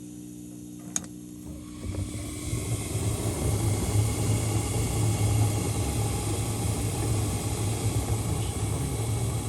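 1991 Rheem gas furnace starting up: a steady hum, a sharp click about a second in, then a rushing rumble that builds over a couple of seconds and runs on steadily.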